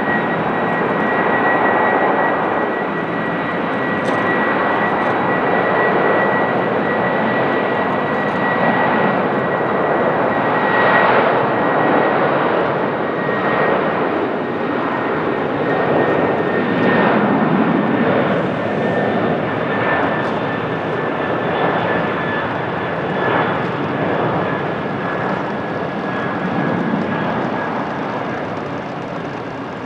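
Jet airliner engines running loud and steady, a full rushing roar with a thin high whine that sinks slowly in pitch.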